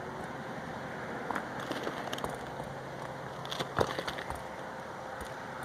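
Asphalt roofing shingles being handled and lifted, giving scattered light clicks and scrapes over a steady outdoor hiss, with a sharper knock about four seconds in.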